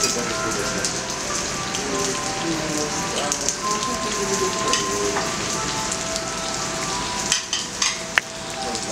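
Beef sizzling steadily on a hot teppanyaki iron griddle, with a few sharp clicks of metal utensils a little before the end.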